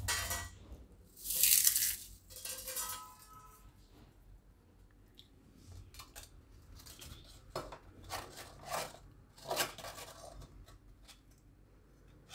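Crisp fried wheat-flour papad crunching and crackling as it is crushed by hand, with pieces dropping onto a steel plate. The loudest crunch comes about a second and a half in, and a few softer crackles follow later as the papads are handled on a plate. The brittle crackle shows the papad is fried crisp.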